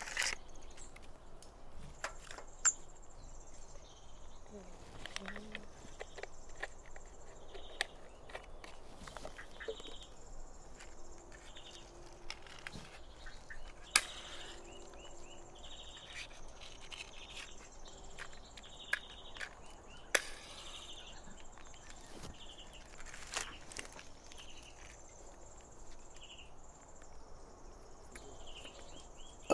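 Jungle insects buzzing steadily with short, repeated chirping calls, over scattered sharp clicks and knocks as utensils and sticks are handled at a small cooking fire.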